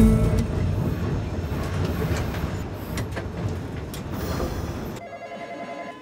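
Vintage electric tram running on rails, heard from inside the cab: a steady rumble of wheels on track with scattered clicks and knocks, slowly fading. It cuts off abruptly about five seconds in.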